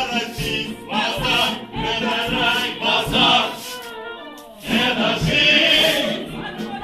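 Music with a choir of voices singing, dipping briefly in loudness about two-thirds of the way through.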